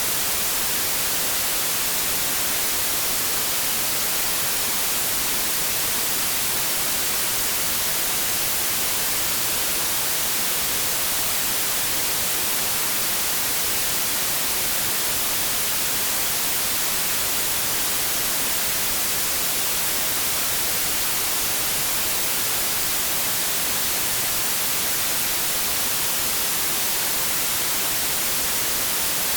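Steady white noise static: an even, constant hiss strongest in the high treble, with no change in level or character.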